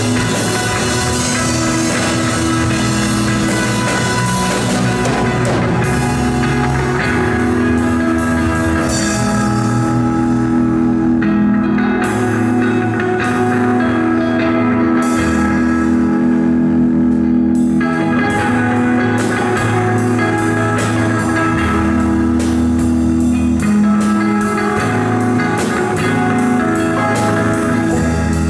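A rock band playing an instrumental piece live, with electric guitar and drum kit over keyboard.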